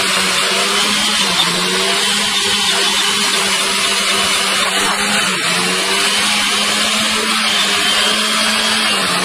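A motor running at a steady pitch, a constant hum with a hiss over it, dipping slightly in pitch a few times.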